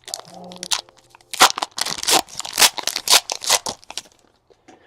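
Wrapper of a trading-card pack being torn open and crinkled: a dense run of crackling rips and crumples lasting about four seconds, thickest in the middle.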